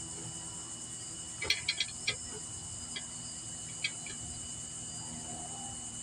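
Crickets chirping steadily in the background, with a handful of sharp clicks, a cluster of four about a second and a half in and two more around three and four seconds.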